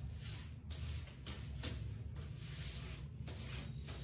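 Hands rubbing and pressing a sheet of kite paper flat on a tabletop, a run of dry swishing strokes about one or two a second, smoothing it down over freshly applied paste so it sticks.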